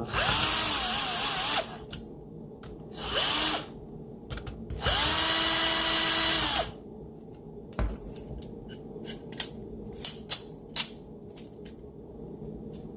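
Power drill running in three bursts, the motor whine rising as it spins up and falling as it stops, the last burst the longest at nearly two seconds. Afterwards come scattered clicks and knocks of parts being handled.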